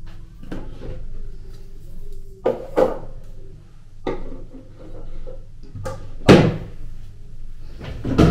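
A series of household knocks and clunks, like doors being opened and shut and things being handled. There are about half a dozen separate strikes, and the loudest comes about six seconds in.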